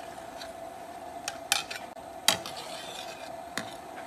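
Long metal ladle clinking against the wok and a bowl while skimming the scum off boiling water in which chicken heads are blanching, a few sharp clinks, the loudest about two seconds in. A steady hum runs underneath.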